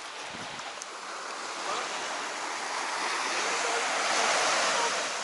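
Sea waves washing onto the shore: a wash of surf that builds to a peak about four seconds in and then falls away.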